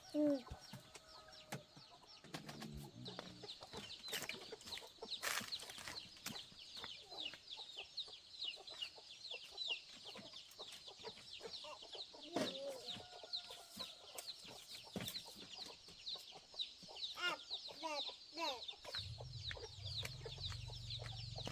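Chickens: a steady stream of high, rapid chick peeps with the occasional lower hen cluck. A low hum comes in near the end.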